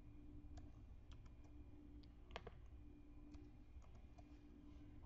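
Faint, irregular clicks of a computer mouse and keyboard over a faint steady hum.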